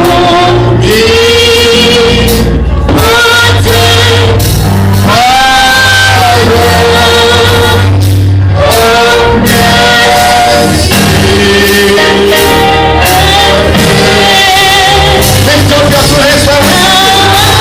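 Gospel praise and worship music: singing over a band, with held sung notes and a steady bass line.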